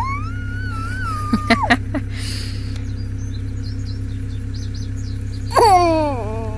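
A baby squealing: one long, high, drawn-out squeal in the first second and a half, then a shorter squeal falling in pitch near the end, over a steady low hum.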